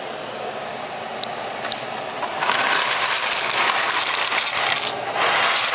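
Water boiling in a pot on a gas stove, then from about two and a half seconds in a louder hiss as dry pasta is poured from its cardboard box into the pot, dipping briefly near the end.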